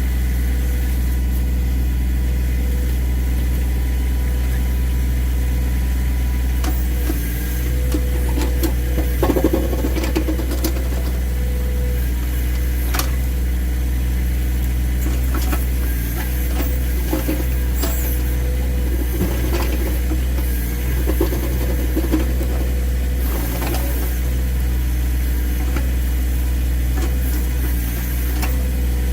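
John Deere 1023E compact tractor's three-cylinder diesel running steadily while it powers the 260 backhoe, with the bucket knocking and scraping against thick ice at irregular moments through the second half.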